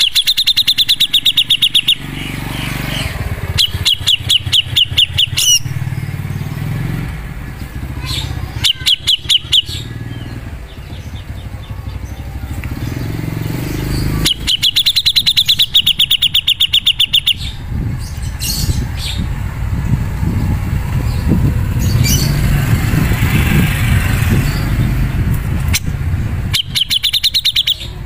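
Grey-cheeked bulbul (cucak jenggot) singing in bursts of very fast, rapidly repeated high chattering notes, each burst one to three seconds long, five bursts in all, over a steady low rumble.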